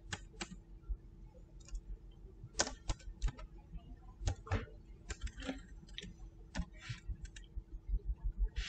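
Computer keyboard and mouse clicks: a dozen or so scattered, irregular taps with pauses between them.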